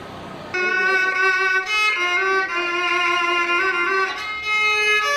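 Chinese bowed two-string fiddle (huqin) playing a slow tune in the Hakka Han music style, one melodic line sliding between notes. It cuts in sharply about half a second in, after a moment of low street hum.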